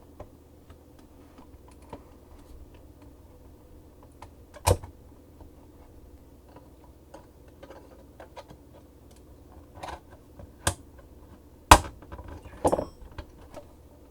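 Plastic case of an external hard drive enclosure being pried apart: scattered small clicks of the clips and case, with a sharp snap about five seconds in, two more near the end (the second the loudest), then a short clatter of clicks.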